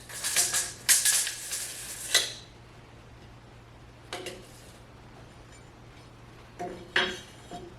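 Clattering and scraping of hand tools being handled on a wooden timber while it is measured and marked: a run of scraping and clatter over the first two seconds, a short clatter about four seconds in, and two more near the end.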